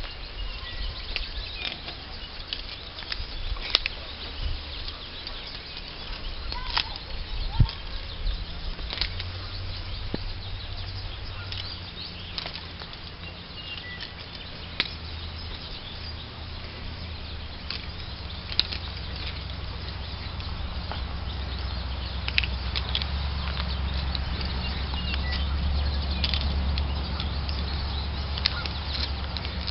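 Wind buffeting the microphone in a fluctuating low rumble that grows stronger in the second half, with scattered sharp clicks.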